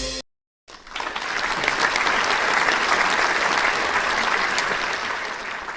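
Applause from a crowd, a dense patter of clapping that swells in about a second in and fades away near the end. Background music cuts off abruptly just before it.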